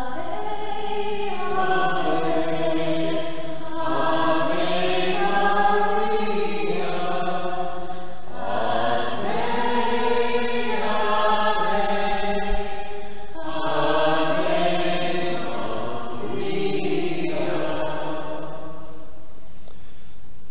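Sacred chant sung between decades of the rosary, in several long phrases of held notes with short pauses for breath.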